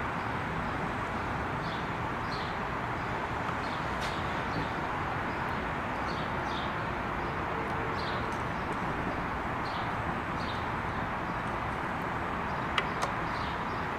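Steady background noise with faint high chirps scattered through it, and two small clicks about a second before the end.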